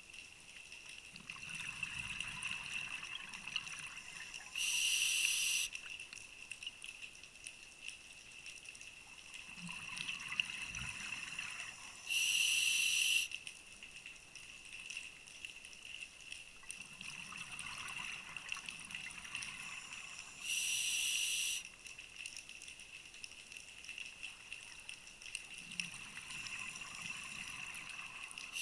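Scuba diver breathing through a regulator underwater, heard about every 8 seconds: a few seconds of bubbling, gurgling exhaust bubbles, then a short, loud hiss of the inhalation. A steady high tone runs underneath.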